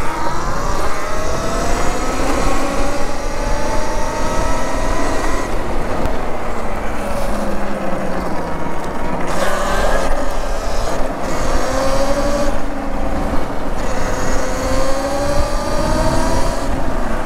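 Electric motor whine of a Talaria Sting electric dirt bike running an 8000 W controller, rising and falling in pitch as the bike speeds up and slows, over wind rumble on the microphone. A higher-pitched whine cuts in and out several times.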